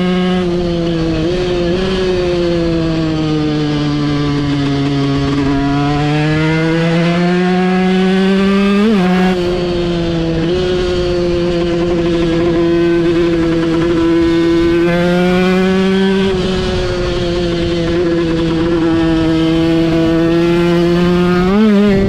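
A small engine running hard at high revs on the move, its pitch sagging over a few seconds and climbing back, with short sharp blips about nine seconds in and again near the end.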